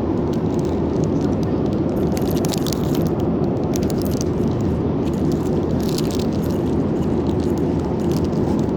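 Steady drone of an airliner cabin in flight, a low even rumble. A few brief rustles and scrapes are heard close by: the handling of a meal tray or its packaging.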